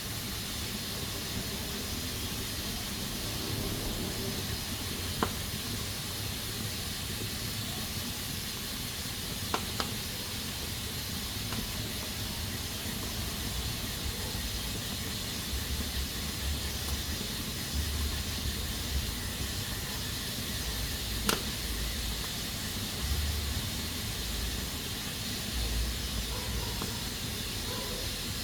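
Pressure cooker hissing steadily as steam escapes from its valve, with a few sharp clicks.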